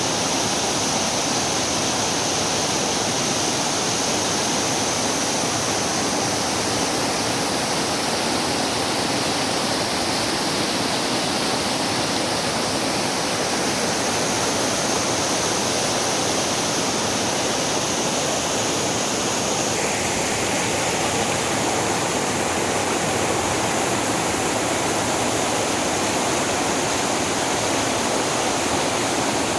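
Steady rush of a fast-flowing stream of water over rocks.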